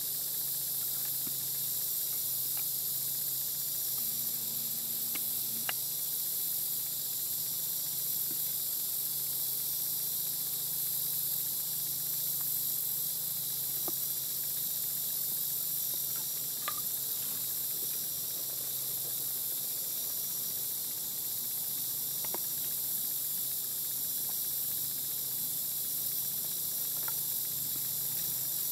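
Steady high-pitched hiss of an insect chorus in woodland, with a few faint scattered ticks and a brief low hum about four seconds in.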